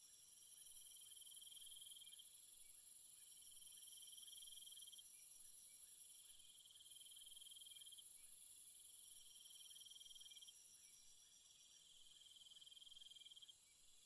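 Faint chorus of insects trilling: a pulsed trill repeats in phrases of about a second and a half every few seconds, over a steady high-pitched insect drone.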